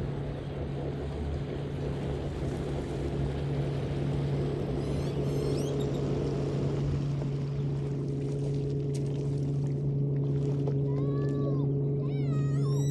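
Stand-up jet ski engine idling with a steady low hum as it comes in slowly, while a dog whines in high, arching cries, a few around the middle and several more near the end.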